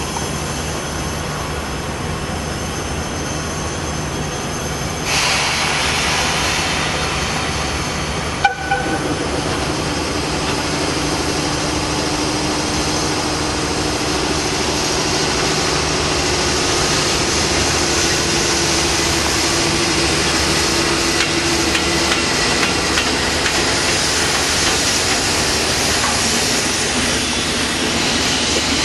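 Electric locomotive running slowly through a rail yard: a steady hiss and hum that gets louder about five seconds in. A single sharp clank comes at about eight and a half seconds, followed by a low steady drone for some seconds.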